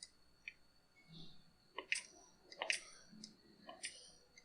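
Hand pressure pump being worked to pressurise a chainsaw carburetor for a leak test: a few sharp clicks, about four, with soft puffs between them.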